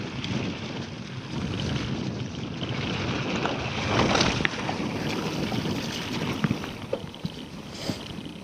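Scott Genius LT 710 Plus mountain bike riding a dirt trail: tyres rolling over the ground and wind rushing over the microphone, with scattered clicks and rattles from the bike.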